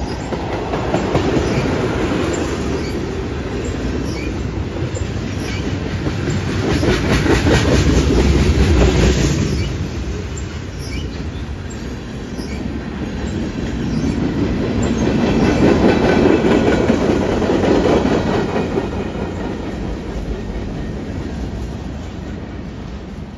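Freight train tank cars and covered hoppers rolling past close by: a steady wheel-on-rail rumble with clickety-clack over the rail joints. It swells twice and fades near the end as the last cars move away.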